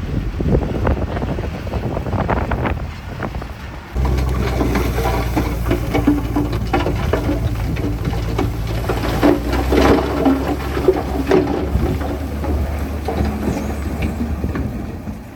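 Heavy diesel construction machine running steadily, with many short clanks and knocks over the engine; the engine note steps up suddenly about four seconds in.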